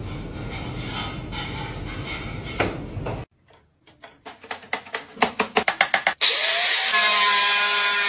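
Angle grinder cutting into a PlayStation 4 console's casing: a loud, steady grinding with a whine that starts about six seconds in. Before it comes a run of sharp clicks that get faster and faster.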